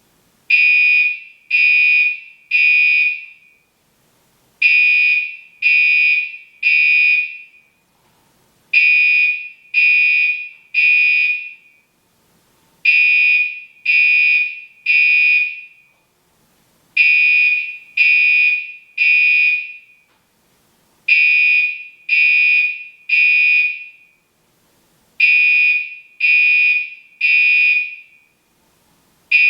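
Gentex Commander 3 (GEC3-24WR, 24 VDC) fire alarm horn sounding the temporal-3 evacuation pattern: three loud, high-pitched horn blasts, then a pause, repeating about every four seconds.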